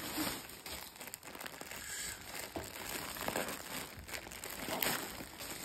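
Plastic packaging crinkling and rustling irregularly as hands handle and open a clear plastic garment bag.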